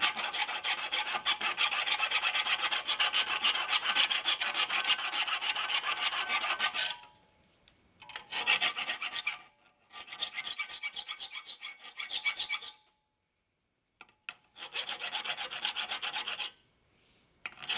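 Rough side of a flat file rasping back and forth across a brass hinge tube, smoothing the ragged slot between the hinge knuckles. A long bout of quick strokes lasts about seven seconds, then comes in shorter bouts with pauses between, including a short dead-silent break about halfway through.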